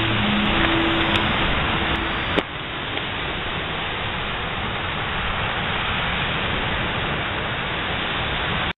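Steady rushing background noise, with a single sharp click about two and a half seconds in, after which the noise is slightly quieter; the sound cuts off abruptly near the end.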